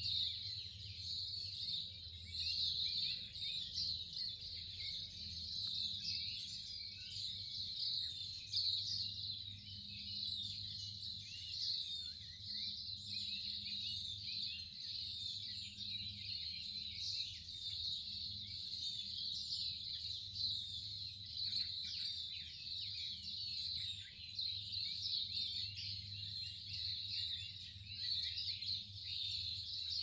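Many birds singing at once: a dense, overlapping chorus of chirps and trills that runs on without a break, over a faint steady low hum.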